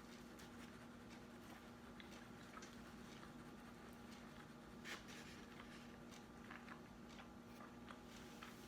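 Faint eating sounds: soft scattered clicks and light chewing, one click a little louder about five seconds in, over a low steady hum.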